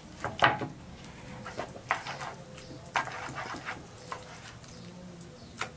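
Wooden masher knocking down onto soft boiled potatoes on a wooden board, then a wooden spoon patting and scraping the mash. The strokes come as a string of short soft knocks and scrapes, the loudest about half a second in.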